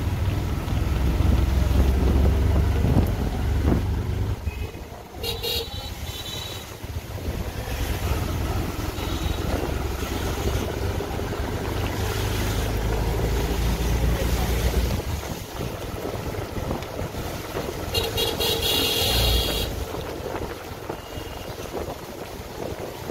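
Road traffic with a steady low engine rumble and wind noise. Vehicle horns honk twice, once about five seconds in and again a little over a second long near the end.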